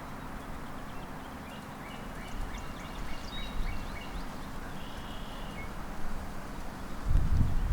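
Outdoor ambience: a steady background noise with a faint hum, and birds chirping briefly in the middle. A louder low rumble comes in near the end.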